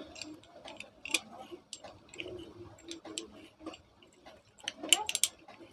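Irregular light metallic clicks and taps of hand tools working a ceiling fan's ball bearing off its shaft, with a denser, louder run of clicks about five seconds in.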